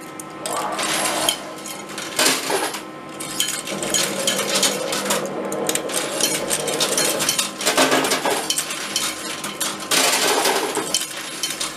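Metal coins clinking and sliding on the shelves of a coin pusher arcade machine, with several louder bursts of clattering as coins are shoved and tumble together.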